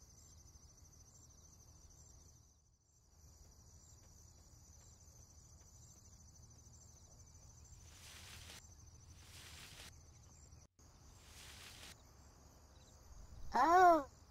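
Crickets chirping steadily over a quiet rural ambience, with three soft swishes in the middle. Near the end, a short cartoon-style squeak from the bunny character, rising then falling in pitch, is the loudest sound.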